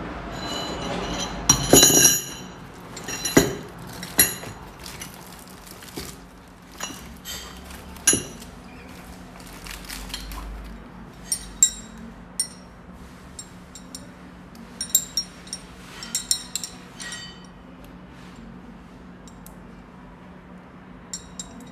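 Chrome-vanadium steel L-type socket wrenches clinking against one another as they are handled. The clinks are sharp and ringing, irregular, and some come in quick runs of two or three.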